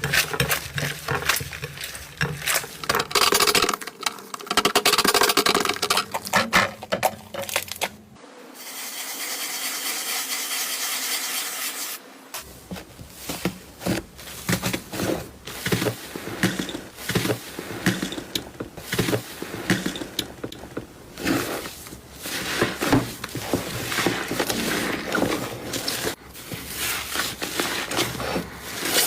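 Slime worked by hand, giving a dense run of small crackles, pops and squishes, with a steady hiss for about four seconds a third of the way in.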